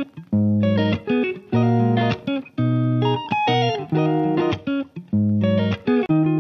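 Background music with a steady rhythm of short pitched chords over a bass line.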